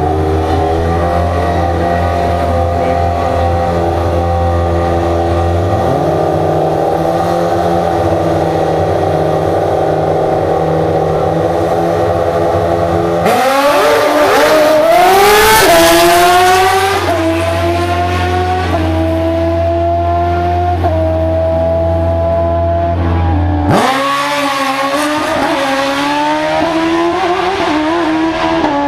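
Drag-racing sport motorcycles, their engines running steadily at the starting line. About halfway through they accelerate hard, the pitch climbing in steps with each upshift, and another stepped climb in pitch follows near the end.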